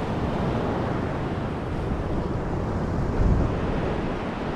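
Wind buffeting the microphone over the steady wash of surf, with a stronger low gust about three seconds in.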